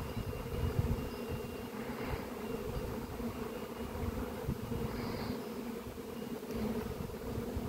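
A swarm of honeybees in flight, a steady buzz from many wings, over an uneven low rumble of wind on the microphone.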